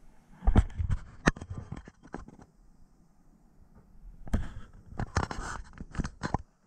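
Close handling noise: irregular scraping, rustling and knocking right at the microphone, in two bursts of about two seconds each.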